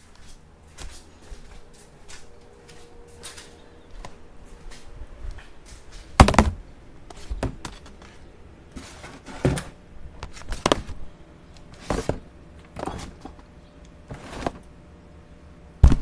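Irregular knocks and clunks of things being handled, with fainter taps in between. The loudest knocks come about six seconds in and at the end, when a hand is on the phone.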